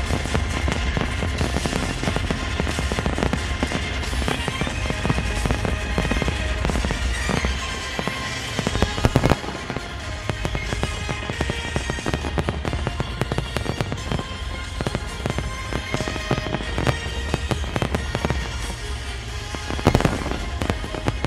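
Fireworks display: a dense, continuous run of bursting shells, bangs and crackles, with two louder bursts about halfway through and again near the end.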